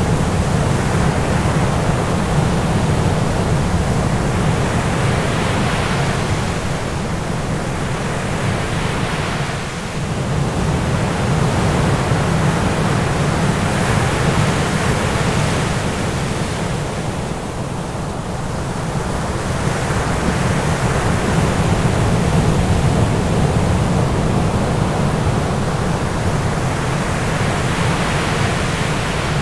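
Steady rush of ocean surf, swelling and easing every several seconds over a strong low rumble.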